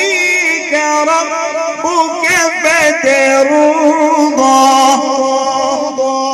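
Male qari's voice in melodic Quran recitation (tajweed), holding long, ornamented notes whose pitch wavers up and down.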